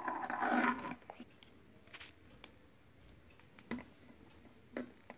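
A child's hoarse, growly vocal noise for about the first second, then several scattered sharp clicks of a plastic transforming robot toy's jointed parts being moved and snapped into position.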